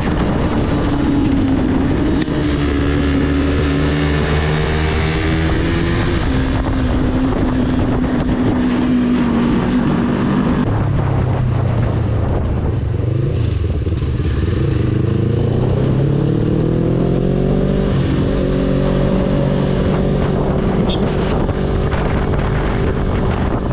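Motorcycle engine running on the move. Its pitch drops sharply about ten seconds in, then climbs again a few seconds later as it speeds up.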